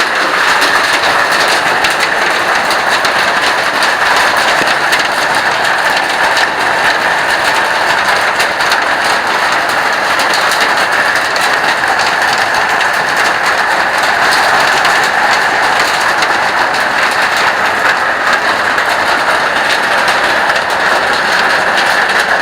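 Steady, loud rush of falling water and heavy rain, unbroken and even throughout.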